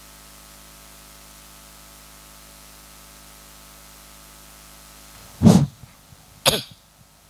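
Steady hiss and mains hum from a live microphone channel, then two loud thumps on the handheld microphone about a second apart near the end.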